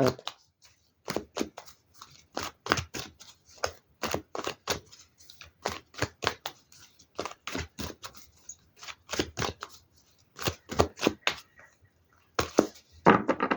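A deck of tarot cards being shuffled and handled: a long run of quick, irregular card slaps and clicks, with a couple of short pauses.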